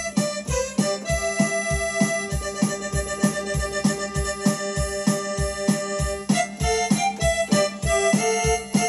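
An instrumental song played on an electronic keyboard with an accordion-style voice. A sustained melody runs over an even, steady beat of low bass strokes, about three a second.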